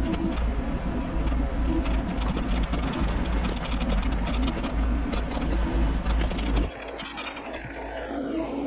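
Bobcat E42 mini excavator's diesel engine and hydraulics running under load, heard from the machine with a dense rapid clatter over a low rumble. About two-thirds of the way in the low rumble drops away suddenly and the sound becomes quieter.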